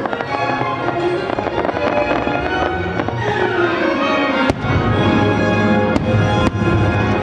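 Fireworks display with its show music playing continuously, firework shells bursting over it with sharp bangs about four and a half, six and six and a half seconds in.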